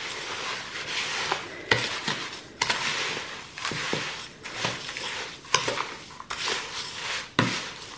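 Wooden spoon stirring dry bath salts (Epsom salt mixed with dried flowers) in a plastic mixing bowl: a gritty scraping rustle in repeated strokes, with a few sharp knocks of the spoon against the bowl.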